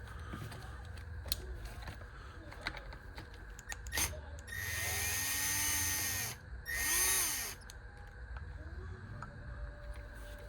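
Small power driver or drill running in two bursts, about two seconds and then one second, its motor pitch rising and falling in each, with small clicks of handling hobby parts around them.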